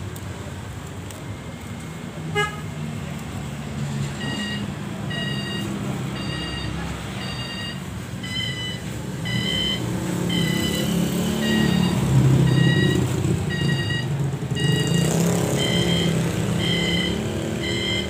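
A bird repeating one short piping note over and over, about one to two a second and quickening near the end, over a steady low rumble.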